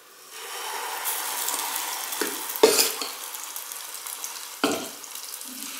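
Urad-and-moong dal batter sizzling in hot oil as it is dropped in by the spoonful: a steady hiss that starts about half a second in. A steel spoon gives three sharp clinks against the steel vessels, the loudest nearly three seconds in.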